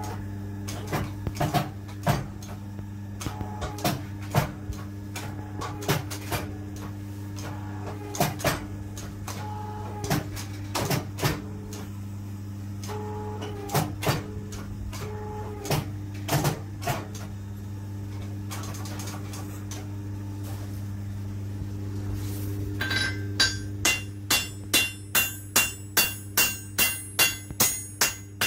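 A forging press's motor hums steadily while the press clanks in strokes about once a second as it squeezes the hot blade steel. The clanks stop about 17 seconds in, leaving the hum alone. From about 23 seconds in, a hand hammer strikes the hot blade on a steel anvil in quick ringing blows, about two to three a second.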